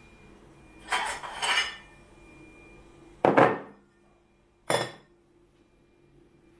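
Dishes and cutlery being handled: a short clattering rattle about a second in, then two sharp clinks or knocks of crockery being set down, about a second and a half apart, the first the loudest.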